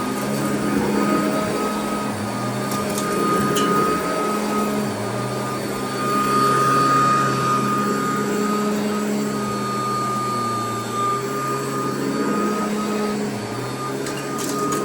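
Royal vacuum cleaner running on carpet: a steady motor whine over a low hum that shifts slightly in pitch now and then.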